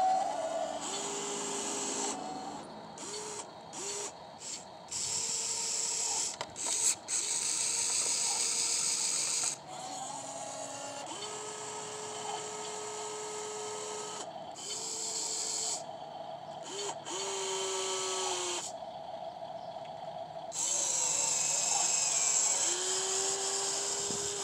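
Small RC excavator's electric motors whining in short runs of a second to a few seconds, starting and stopping as the boom, arm and bucket move. Each run holds a steady pitch, with a gear hiss that comes and goes.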